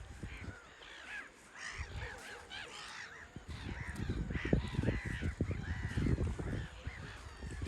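A flock of seabirds calling over one another: many short, arched cries in quick succession, with a low rumble underneath.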